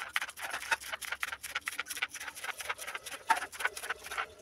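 Kitchen knife finely chopping a spring onion on a plastic cutting board: a quick, uneven run of sharp taps, several a second.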